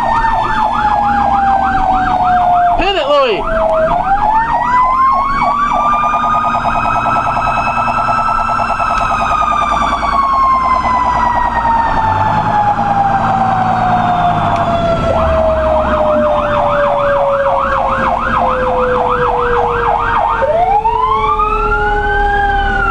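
Federal Q2B mechanical siren on a fire engine, winding up and coasting down in long slow wails, layered with a fast electronic yelp siren, heard from inside the cab over the truck's engine rumble.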